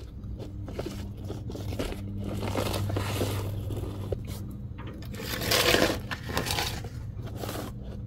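Scraping and rubbing as a clutch cable is worked into place under a car, past the exhaust headers, with a louder scrape about five and a half seconds in. A steady low hum runs underneath.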